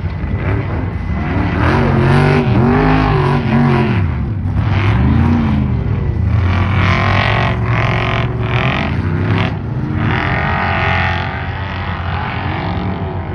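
Off-road race trucks' engines running hard, their pitch rising and falling again and again as the drivers rev and lift through the course, with more than one truck heard at once.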